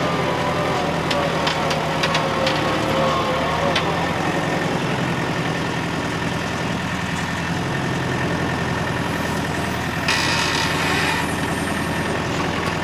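Kubota tractor's diesel engine running steadily as it carries a round hay bale on its front loader, with a few light clanks in the first few seconds and a short hiss about ten seconds in.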